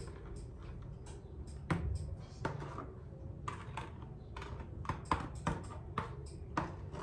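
A spoon scraping and tapping inside a plastic bowl, scooping out thick soap batter: a run of irregular light clicks and scrapes.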